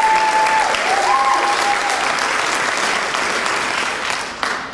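Audience applauding, with two held shouts rising over the clapping in the first two seconds. The applause thins and dies away near the end.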